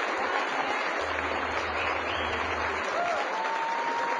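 Crowd of spectators applauding and cheering in a steady clatter, with a single long held note rising out of it near the end.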